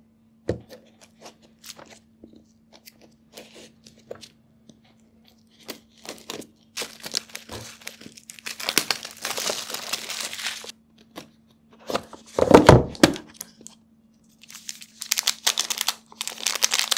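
Shrink-wrap being slit, torn and peeled off a smartphone box, with small clicks and scrapes at first and then long bursts of crinkling plastic film. One louder, deeper rustle about three-quarters of the way through, and more crinkling of a plastic sleeve near the end. A faint steady hum runs underneath.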